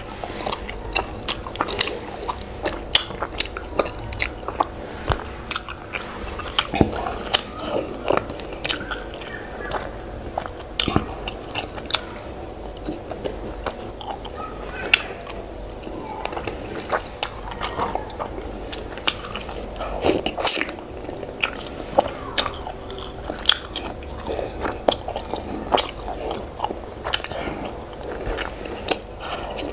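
A person chewing and smacking through a mouthful of yam and owo stew, with frequent irregular sharp wet mouth clicks.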